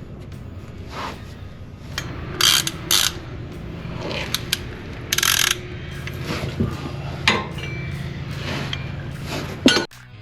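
Hand ratchet clicking in short, irregular runs while the new oil filter is wrenched tight, over a steady low hum.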